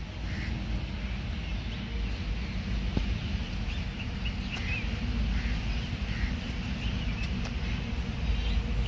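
Outdoor ambience: a steady low rumble with faint, short high chirps now and then, and a single light click about three seconds in.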